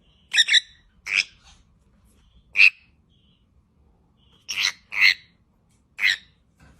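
A bird calling in six short, sharp calls at irregular intervals, two of them close together about four and a half seconds in.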